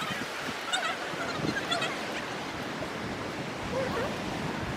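Steady outdoor wash of surf and wind by the sea, with a few faint, short, wavering high calls over it in the first two seconds.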